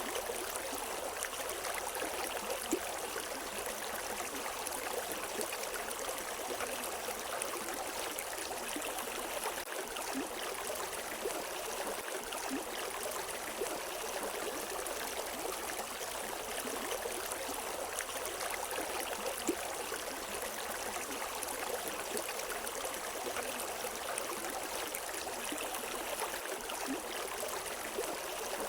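A river flowing over rocks, a steady rush of water with small splashes and gurgles scattered through it.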